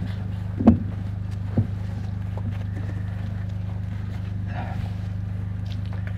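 Two dull thumps about a second in, from a microphone on its stand being handled and adjusted, over a steady low electrical hum from the sound system.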